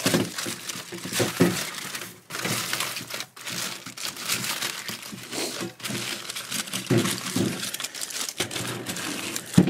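Aluminum foil crinkling and crumpling as it is wrapped and pressed over a baking pan, in uneven spells of rustle with short pauses.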